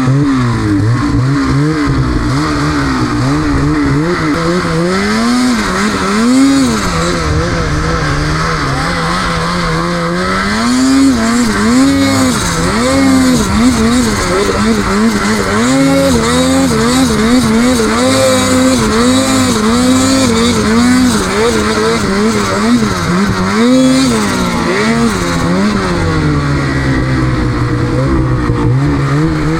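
Snowmobile engine under heavy throttle in deep snow, revving up and down over and over, its pitch rising and falling about once a second.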